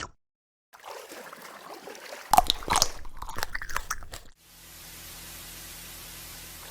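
Crunching and chewing eating sounds, with the loudest crunches from about two to four seconds in, followed by a steady even hiss.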